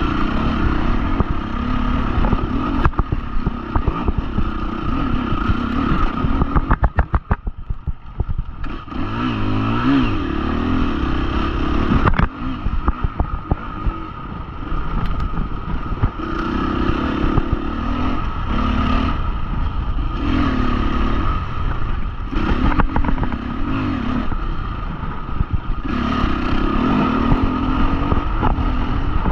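Husqvarna FE350 single-cylinder four-stroke dirt bike engine being ridden, its revs rising and falling over and over, with frequent knocks and rattles.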